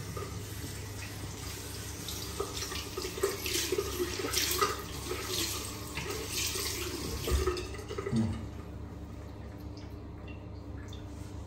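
Water running from a bathroom sink faucet into a ceramic basin, splashing unevenly as a small washcloth is wetted under the stream. The splashing stops about eight seconds in.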